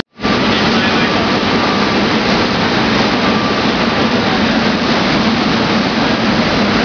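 Steady, loud factory machinery noise: an even rushing din with a low constant hum beneath it, cutting in abruptly just after the start.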